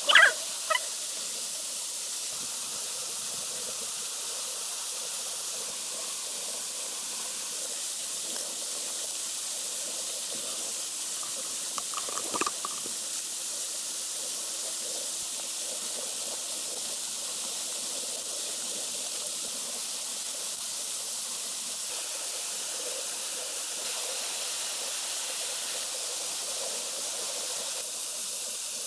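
Steady rush of a waterfall, an even hiss. A dog yips a couple of times right at the start.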